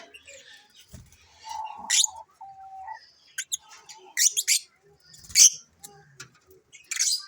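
African lovebirds chirping: short, sharp, high-pitched chirps coming in quick clusters.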